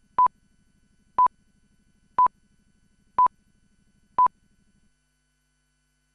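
Five short electronic beeps at one steady pitch, evenly spaced a second apart, over a faint low hum that stops about five seconds in.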